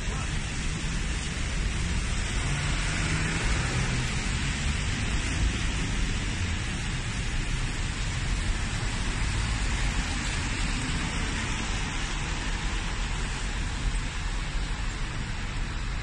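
Traffic on a rain-soaked city street: car tyres hissing on the wet tarmac as cars pass, over a steady low rumble of engines.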